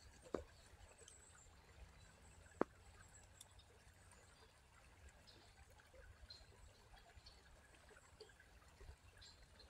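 Near silence: faint outdoor room tone with a few soft ticks and one sharp click about two and a half seconds in.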